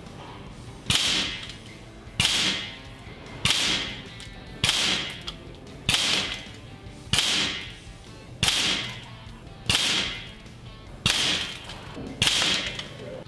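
Ten sharp, whip-like shot sounds, evenly spaced about one and a quarter seconds apart, one for each pellet hole of a ten-shot group appearing in the target. Each fades over about half a second, with quiet background music underneath.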